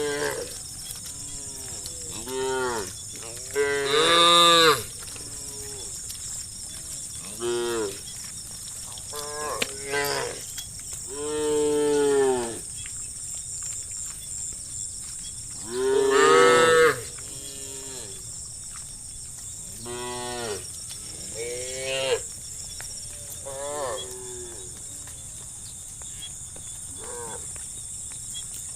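A herd of cows mooing again and again, about a dozen calls that rise and fall in pitch, the loudest a few seconds in and just past halfway. A steady faint high-pitched drone runs underneath.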